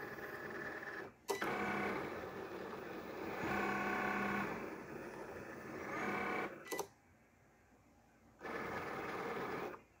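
Cricut cutting machine cutting glitter heat-transfer vinyl. Its motors whir in stretches with several steady tones as the blade carriage and rollers move. There is a sharp click about a second in, a pause about seven seconds in, and one more short run that stops just before the end.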